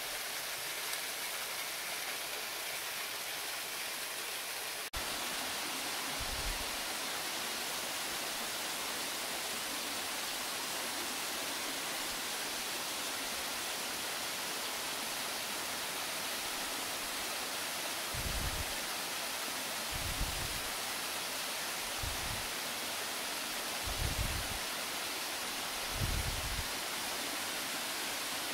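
Waterfall pouring: a steady rushing hiss of falling water, with a click and a small step up in level about five seconds in. Several short low thumps come in the second half.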